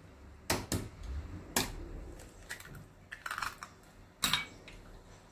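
Eggs being taken from a small glass dish and cracked into a glass mixing bowl: a handful of sharp, irregular clicks and taps of eggshell on glass.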